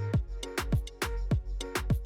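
Background music with a steady beat and deep kick drums that drop in pitch on each hit.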